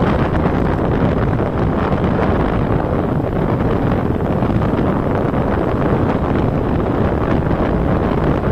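Steady, loud wind rushing over the microphone of a mountain bike riding fast down an asphalt road.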